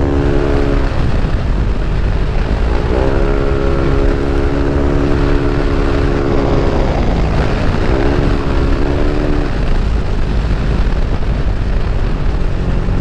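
Yamaha NMAX scooter's single-cylinder engine, bored out to 195cc, running under way with heavy wind rush on the microphone. Its steady engine note fades about a second in and comes back twice, from about three seconds and again around eight seconds.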